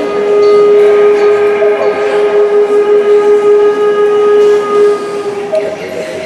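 A folk wind instrument played solo, holding one long steady note for about five seconds before moving on to other notes near the end.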